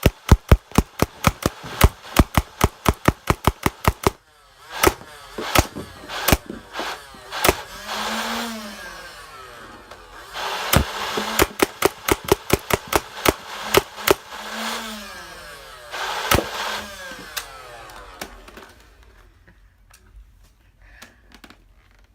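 Nerf Rival Nemesis motorized blaster firing foam balls in full-auto: a rapid even string of sharp shots for about the first four seconds, then scattered shots and short bursts with the flywheel motor whirring up and down, dwindling to a few faint clicks near the end.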